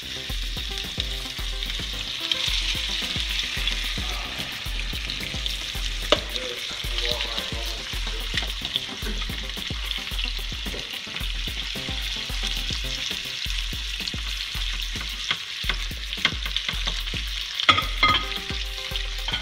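Seasoned flounder fillets sizzling steadily as they fry in hot olive oil in a nonstick frying pan. A fork clicks against the pan a few times, loudest near the end.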